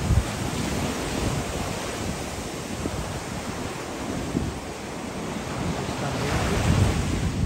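Rough surf at high tide: waves breaking and washing up the sand and around rocks, with wind buffeting the microphone. The wash swells louder about six seconds in.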